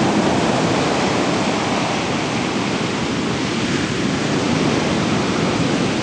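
Ocean surf breaking and washing up a sand beach: a steady rush of water.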